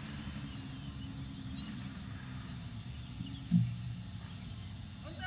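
Outdoor ambience: a steady low rumble with a few faint, short bird chirps, and one brief low thud about three and a half seconds in.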